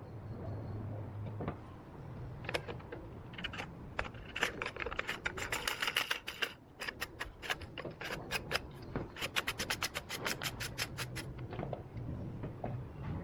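A few scattered knocks, then a long run of rapid, evenly spaced sharp clicks, about six a second, from about four seconds in until about eleven seconds in. A low steady hum lies underneath.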